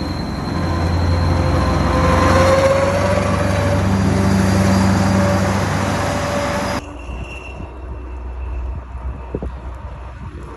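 Kirovets K-700 tractor's turbocharged V8 diesel revved and held high, a turbo whistle sounding over the engine; about seven seconds in the revs drop abruptly back to a low idle, a fainter, lower whistle lingering.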